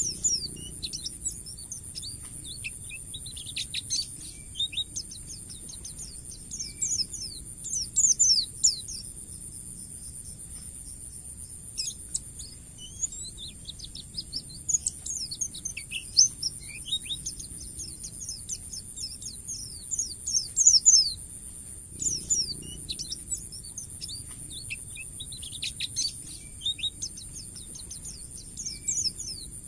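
White-eye (pleci) song: rapid clusters of thin, high chirps and short falling notes, coming in busy runs every few seconds. A steady high-pitched whine runs behind it.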